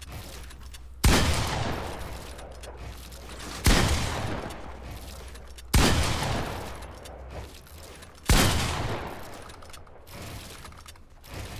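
Four single gunshots from a video game, about two to two and a half seconds apart, each trailing off in a long echo.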